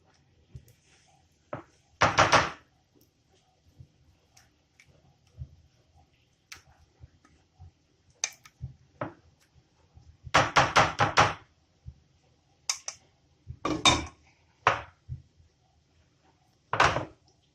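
A spatula scraping and tapping against a cooking pot in several short bursts with pauses between, clearing out the last of a thick chocolate pudding mixture.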